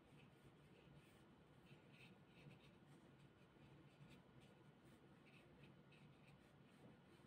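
Faint, irregular scratchy strokes of a paintbrush on watercolour paper as paint is blended, over near silence.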